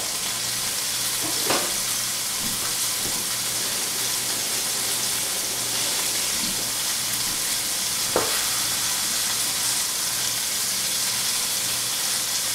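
Chuck roast browning in canola oil in a hot skillet, sizzling steadily, with two faint clicks.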